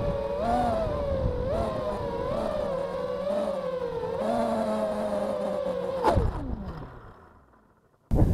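FPV racing quadcopter's motors whining, heard from the drone's onboard camera, the pitch wavering up and down with the throttle. About six seconds in the pitch falls steeply and dies away as the motors spool down, and near the end there is a short loud burst of noise.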